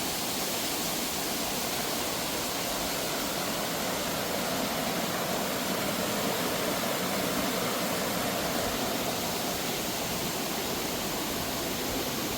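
Steady rushing of running water, an even noise with no breaks that cuts off suddenly at the end.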